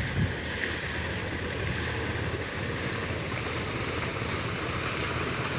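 Sand and river water pumped from a bulkhead barge by a dredging machine, rushing steadily down a plastic-lined channel, with a steady low hum underneath.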